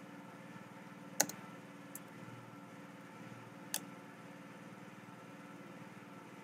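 A few isolated clicks from keyboard and mouse use at a computer during code editing: the sharpest about a second in, then two weaker ones near two and nearly four seconds. A faint steady hum runs underneath.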